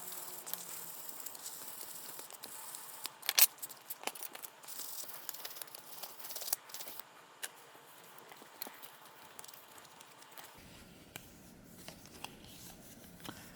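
Clear plastic model part being sanded by hand with 2000-grit abrasive: soft, irregular scratching and rubbing with scattered sharp clicks, one louder click about three seconds in, growing quieter for the last few seconds.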